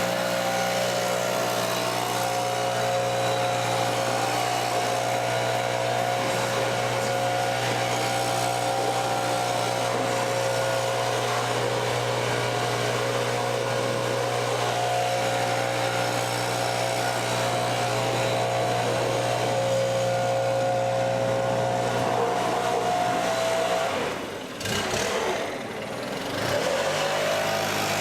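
Kubota BX23S compact tractor's three-cylinder diesel engine running steadily. Near the end the sound drops and wavers for a couple of seconds, then steadies again.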